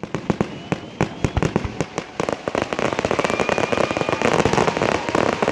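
Fireworks going off: a series of sharp bangs from the start, thickening from about two seconds in into a dense, rapid crackling of many small bursts.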